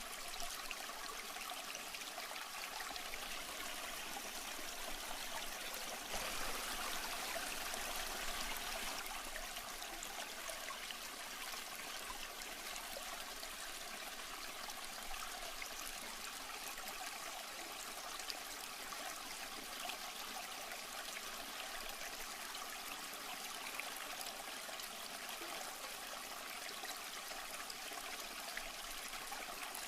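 Water trickling and splashing steadily in a fish tank, a little louder for a few seconds about a fifth of the way in.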